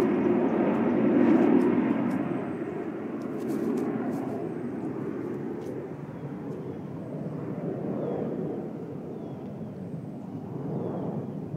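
Jet noise from a Blue Angels F/A-18 Hornet moving away after its pass. It is a broad rumble, loudest in the first two seconds, then fading with a few small swells.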